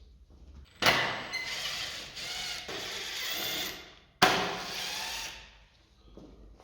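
Cordless power screwdriver running in two bursts, one of about three seconds and a shorter one of about a second and a half, backing out motorcycle fairing screws.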